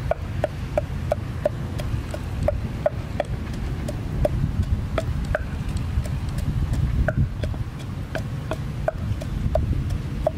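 Wooden pestle pounding in a wooden mortar: sharp hollow knocks about three a second, slowing and turning uneven partway through, over a steady low rumble.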